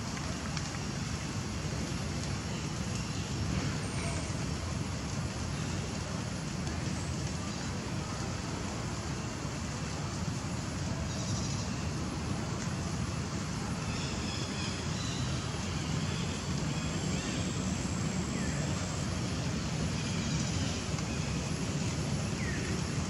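Steady low background rumble with no clear single source, and faint short high-pitched sounds now and then.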